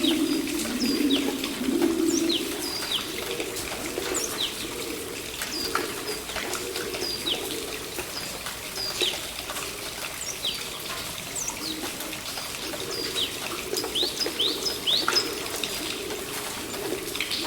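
Pigeons cooing low and continuously, strongest in the first couple of seconds, over short, high, falling bird chirps repeated throughout, with a faint trickle of water.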